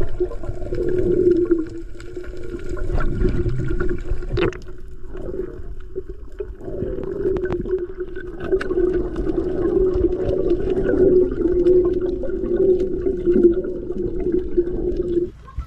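Underwater sound picked up by a camera in its housing: muffled water movement and bubbling under a steady low hum. The hum fades for a couple of seconds about a third of the way in, then returns and cuts off shortly before the end.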